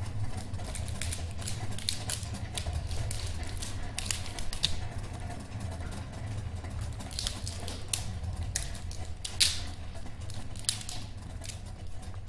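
Juggling rings being thrown and caught by several jugglers at once: irregular sharp clicks and slaps as rings land in hands and knock together, the sharpest about two-thirds of the way in, over a steady low hum.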